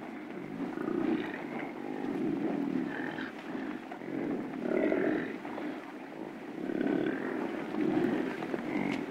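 Blue wildebeest grunting, with repeated low calls about once a second.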